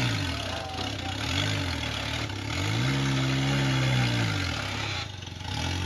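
Rock-crawling buggy's engine revving in bursts as it climbs over boulders: a short blip near the start, another about a second and a half in, then a longer rev about three seconds in, dropping back to idle between.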